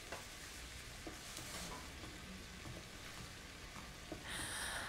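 Faint sizzling of potatoes and porcini mushrooms frying in a pan, growing louder near the end, with a few soft knocks and rustles as a jacket is hung up.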